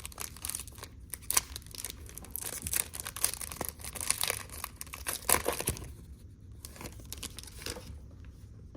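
Card pack wrappers being torn open and crinkled by hand, a dense crackling for about six seconds that then thins to a few scattered rustles.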